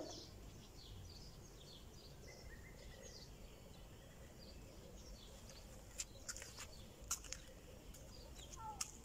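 Faint small birds chirping over and over in high short notes, with a few sharp ticks about six to seven seconds in and again near the end.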